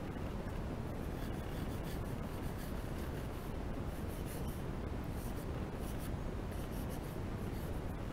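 Pencil shading on drawing paper: short, quick scratching strokes in repeated runs, over a steady low background hum.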